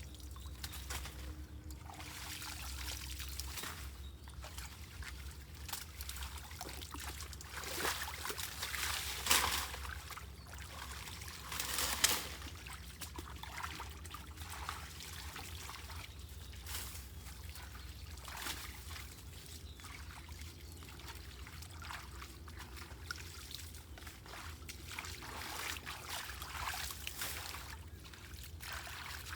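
Floodwater draining away, trickling and pouring steadily, with two louder splashes about nine and twelve seconds in.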